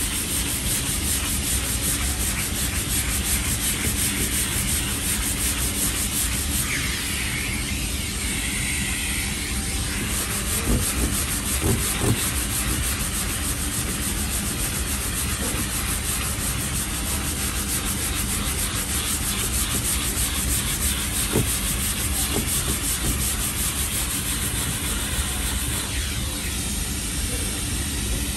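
Hand sanding of cured 3M Platinum Plus body filler on a car door with a 3M purple dust-extraction sanding block: steady, continuous rasping of abrasive paper over the filler, with a few light knocks about eleven to twelve seconds in.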